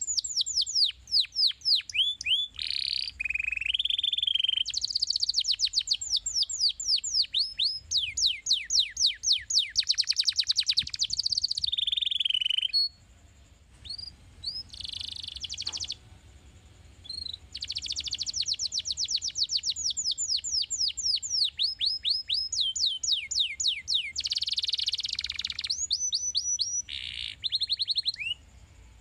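Domestic canary singing: rapid rolls of short, repeated falling notes. It breaks off for a few seconds about halfway, then sings again.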